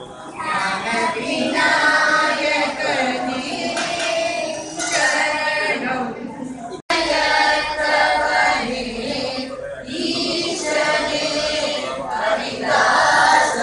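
A group of voices chanting Hindu devotional verses together in unison, held on sustained notes, during a puja. The sound cuts out for an instant about halfway through.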